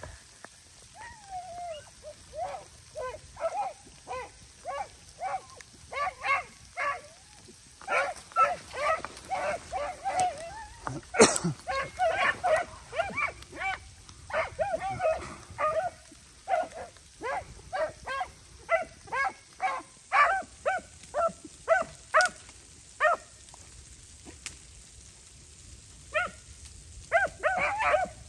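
Rabbit-hunting dogs barking and yipping in a long string of short calls, a few a second, the way dogs give voice while running a rabbit's track; they fall quiet for about two seconds near the end, then start again. A sharp snap about eleven seconds in.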